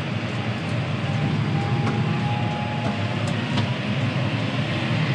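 John Deere 6R tractor running steadily, a deep, even engine rumble with no break.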